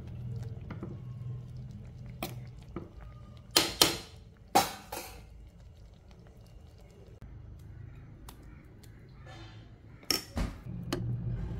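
Metal ladle clinking and scraping against a pan of egg curry as it is stirred, with two loud knocks about three and a half and four and a half seconds in. Near the end come more clinks as the curry is ladled into a serving bowl, over a low steady hum.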